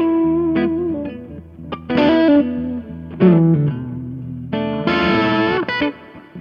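Gibson SG Special electric guitar with P-90 pickups, played through an amp in short phrases of chords and single notes that ring out. A run near the end has bent notes.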